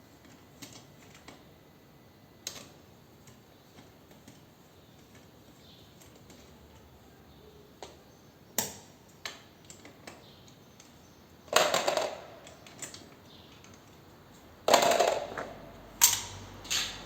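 Motorcycle rear-wheel bolts being loosened and removed with hand tools: scattered sharp clicks, then two bursts of metallic clicking and clattering, one about two-thirds of the way in and one near the end.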